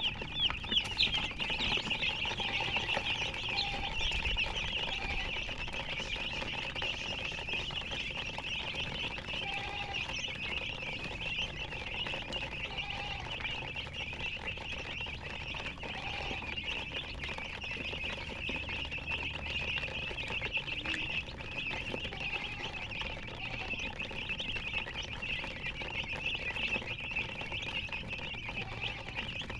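A group of chicks peeping continuously, many short high chirps overlapping, with a short lower note every few seconds.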